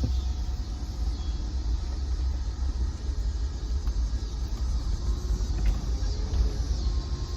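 Pickup truck driving on freshly fitted wheels and tires, a steady low rumble of engine and road noise.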